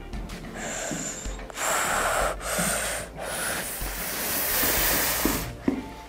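A child breathing out heavily and sighing close to a clip-on microphone: a run of hissy breaths with short gaps between them, the last one long.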